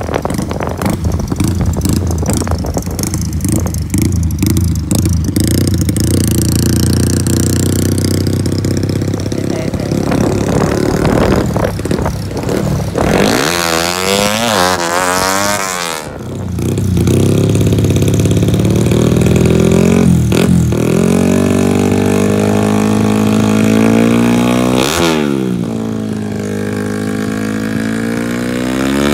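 Tuned Yamaha Exciter 150 motorcycle with a 62zz big-bore single-cylinder four-stroke engine, ridden and revved hard. It runs rough and clattery at first, revs up and down several times in quick succession about halfway through, then holds a high, steady rev with one brief dip and recovery near the end.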